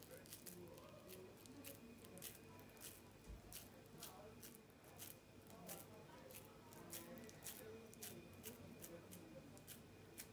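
Faint, irregular sticky clicks and squelches as hands squeeze and press raw minced lamb around a flat wooden skewer, shaping it into a shish kebab.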